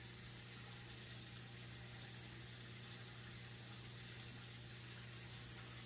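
Turtle-tank water filter running steadily: a low pump hum under a constant trickle and bubbling of water.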